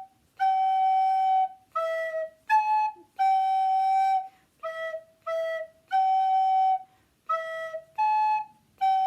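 Soprano recorder playing a simple tongued melody on three notes, G, E and A, mixing long and short notes with short breaks between them. It runs G, E, A, G, E, E, G, E, A, G.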